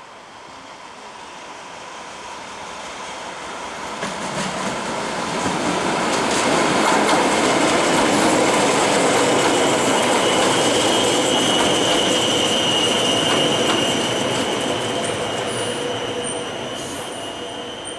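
Tyne and Wear Metro electric Metrocar train approaching and running past close by. The rumble of its wheels on the rails builds to a loud peak and fades away. A high, steady wheel squeal comes in the latter half as the cars pass.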